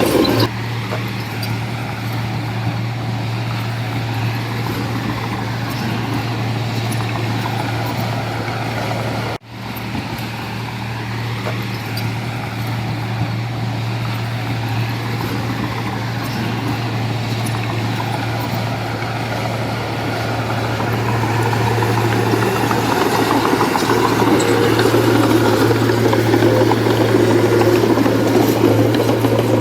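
Heavy diesel engine of earth-moving equipment running steadily at working revs, with a brief break in the sound about nine seconds in and growing louder in the last third.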